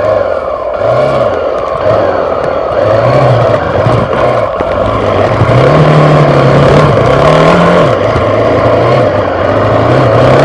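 Dirt bike engine on a trail ride, revving up and down as the throttle is worked, its pitch rising and falling again and again and held high for a couple of seconds near the middle.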